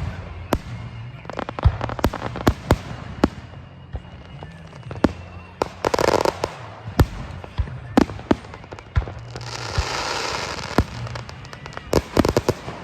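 Fireworks going off: sharp bangs and pops at irregular intervals, a louder burst about six seconds in, a hissing, crackling spell a few seconds later, and a quick run of cracks near the end.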